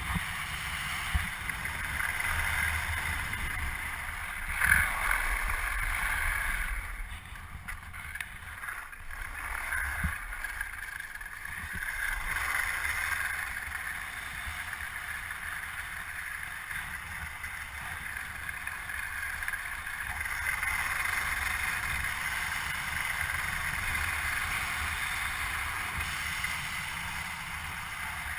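Steady hiss of a snowkiter sliding across snow-covered lake ice, with wind rumbling on the action camera's microphone. It eases off for a few seconds about eight seconds in.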